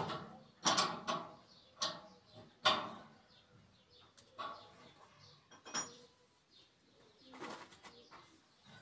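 A series of irregular knocks and metallic clinks from metal parts of a gas cooker being handled and fitted, some ringing briefly.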